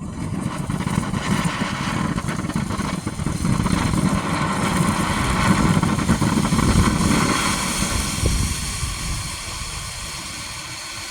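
Phantom Night Reign firework fountain spraying sparks with a steady, loud hiss. It starts suddenly, swells through the middle and eases off toward the end.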